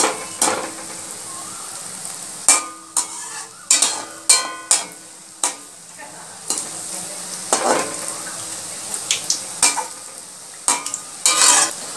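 Biuli (urad) dal fritters deep-frying in hot oil in a karahi, a steady sizzle. A perforated metal spoon stirs them, knocking and scraping against the pan many times.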